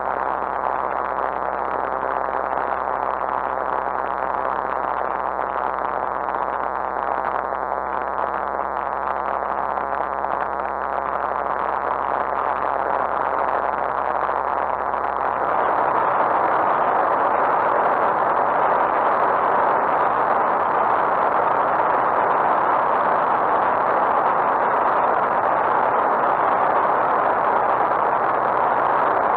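Lightwing GR912's Rotax 912 engine and propeller running steadily in cruise flight, heard from inside the cockpit as a constant drone with air rush. It grows a little louder about halfway through.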